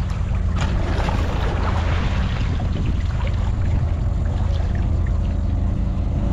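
Steady low drone of a motorized bangka's engine passing at a distance, with water splashing and lapping strongest in the first couple of seconds.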